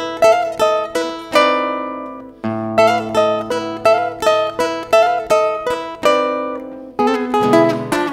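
Acoustic guitar playing an instrumental passage of a chacarera, chords struck in a steady rhythm. Twice the strumming stops and a chord is left to ring and fade before the rhythm picks up again.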